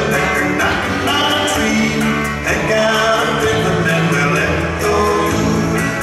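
A song with singing and a steady beat.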